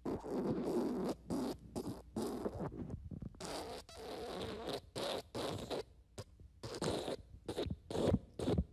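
Fart sound effects: a long, rapidly sputtering fart for about three seconds, then a quick string of about a dozen short rasping farts with brief gaps between them.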